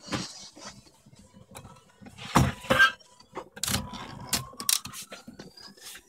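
Princess 300 typewriter's mechanism clacking, several separate sharp mechanical clicks and knocks at uneven intervals, the loudest pair about two and a half seconds in.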